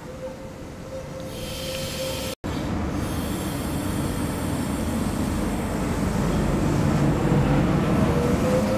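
V-set double-deck electric train: a steady hum while it stands at the platform stops abruptly about two seconds in. Then the rumble and wheel noise of the train moving past builds steadily, with a faint rising whine near the end.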